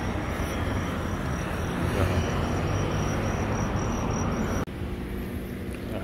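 Steady city street noise with traffic rumble. About two-thirds of the way through it drops abruptly to a quieter, steadier hum.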